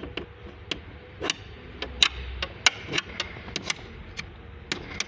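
A dozen or so irregular sharp clicks and taps, small metal parts and tools being handled and knocked together.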